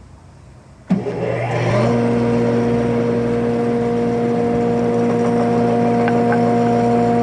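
Delta DC-580 heavy-duty planer with a 5 hp single-phase motor switched on about a second in with a sudden jolt. It spins up with a rising whine for about a second, then runs at a steady speed with a level hum.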